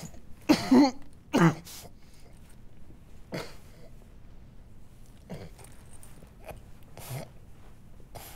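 A man's strained groans and grunts in short bursts during the first second and a half, then single heavy breaths about every two seconds.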